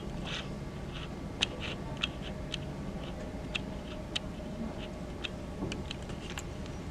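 Irregular light clicks and ticks, a few each second, over a steady low background hum.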